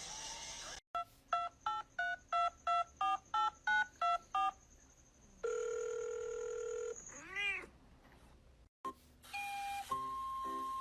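A quick series of about ten short electronic beeps at changing pitches, like buttons pressed on a keypad, then one longer steady beep and a short meow from a cat.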